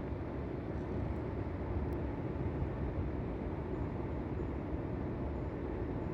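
Air conditioner indoor unit running, its fan blowing air with a steady low whoosh.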